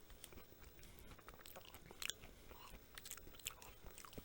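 A person chewing crunchy food close to the microphone, with faint, irregular short crunches and mouth clicks, the clearest about two seconds in and near three and a half seconds.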